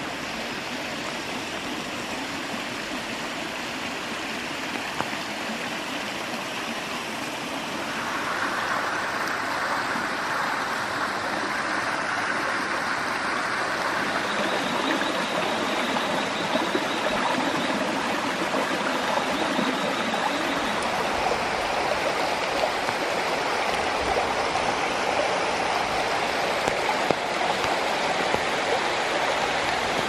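Rainforest stream rushing over rocks and small cascades: a steady wash of water that grows louder about eight seconds in.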